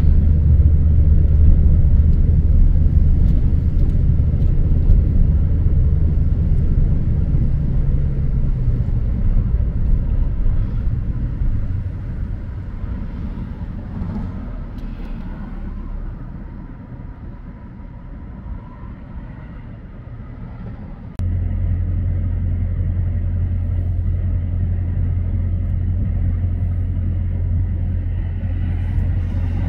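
Low, steady rumble of a car's engine and road noise, heard from inside the vehicle. It sinks away over the middle stretch, then jumps back up abruptly about two-thirds of the way through and holds steady.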